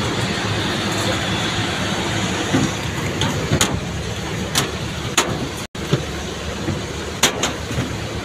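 Steady airport apron noise from aircraft and ground equipment, with sharp clanks of footsteps on a metal boarding staircase. The sound cuts out for an instant a little past halfway.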